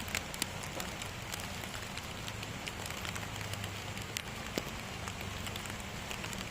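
Steady rain falling, with scattered sharp ticks of individual drops hitting a surface.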